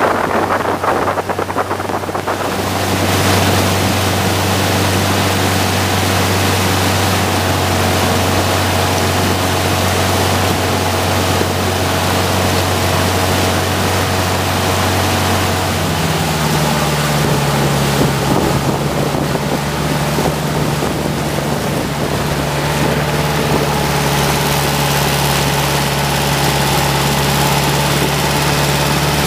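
Longtail boat's exposed inboard engine running steadily under way, with a broad rush of water and wind. About halfway through, the engine note steps up to a higher, steady pitch.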